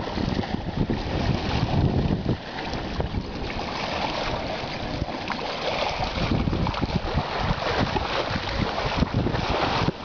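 Small sea waves lapping and washing over shoreline rocks, under wind buffeting the microphone, with the gusts heaviest in the first couple of seconds.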